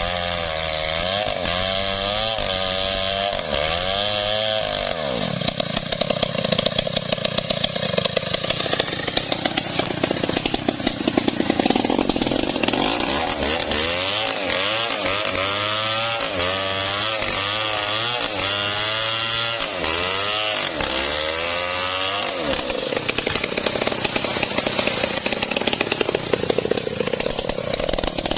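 Stihl 070 two-stroke chainsaw running through the whole stretch while cutting teak wood, its engine pitch rising and falling again and again as the chain loads and frees in the cut.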